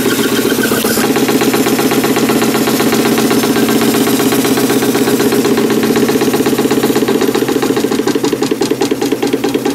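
Märklin 4147/11 live-steam ship's engine running under steam with a fast, even beat, turning a belted dynamo that is lighting a bulb. Near the end the beats become more distinct and widely spaced.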